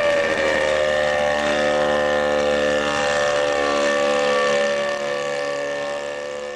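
Engine of a homebuilt light aircraft running with a steady drone, its pitch dropping slightly just after the start and then holding, fading out near the end.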